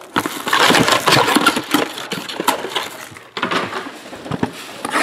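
Plastic shrink wrap crinkling and small cardboard trading-card boxes being handled and set down, with many light taps and knocks, in two busy spells.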